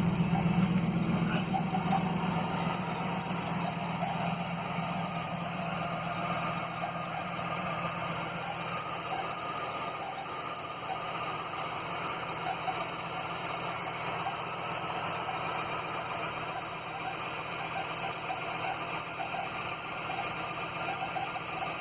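GM LT1 V8 engine idling steadily, with a steady high-pitched whine over the running that the owner suspects comes from the belts.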